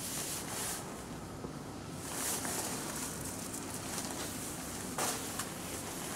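Rustling and shuffling of an inflatable nylon dinosaur costume as its wearer moves, with a sharper brush about five seconds in, over a steady low hum.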